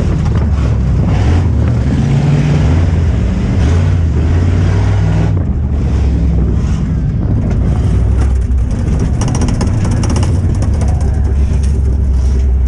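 V8 4x4 pickup truck engine heard from inside the cab, running hard under racing load with its pitch rising and falling as the driver works the throttle through corners. There is a spell of rapid clattering about nine seconds in.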